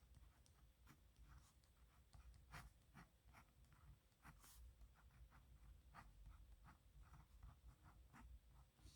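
Faint scratching of a pen nib on paper, in short, irregular strokes with brief pauses between them.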